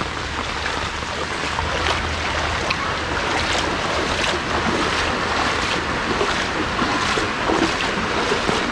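Heavy rain falling on shallow floodwater, with the splashing of feet wading through it.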